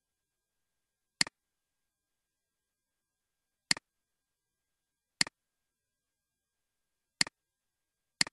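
Computer mouse clicking five times at uneven intervals, each click a sharp double tick of button press and release.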